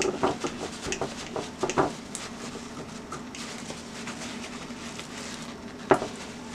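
Paper towel being pressed and patted onto raw T-bone steaks on a ceramic plate: soft rustles and taps in the first two seconds, then quieter with a faint steady low hum. One sharper tap comes near the end.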